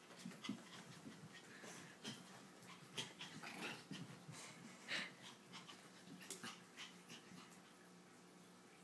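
Toy poodle's quiet panting and short, soft play noises in irregular bursts as it wrestles with a kitten.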